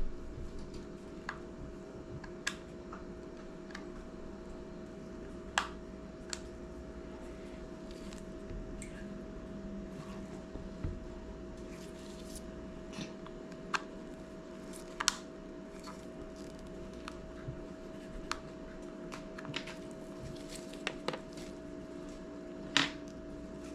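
Irregular small clicks and scrapes of hands and a pry tool working at the clips of an iPod classic's plastic case, over a steady hum.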